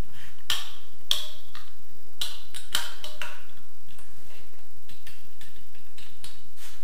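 Sharp clicks and light knocks of plastic and chrome metal parts as a shower slide rail's clear plastic holder and end fittings are handled and fitted on its tube. There is a cluster of louder clicks in the first three seconds, then fainter ones.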